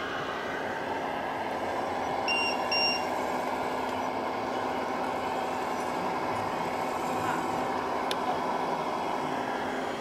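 Radio-controlled model excavator and dump truck running: a steady mechanical hum from their motors and drive. A little over two seconds in come two short, high electronic beeps.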